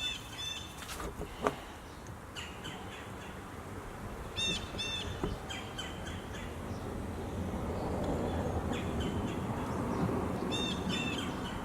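Birds chirping outdoors in short high calls, in two groups about four and a half and ten and a half seconds in, over a steady rushing noise that slowly swells through the second half.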